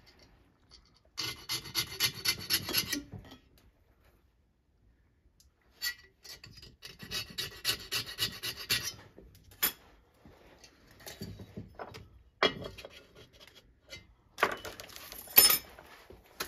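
Piston ring end being filed to widen a ring gap that is too tight: two spells of quick rasping strokes, about five a second, then a few sharp metallic clicks and short scrapes.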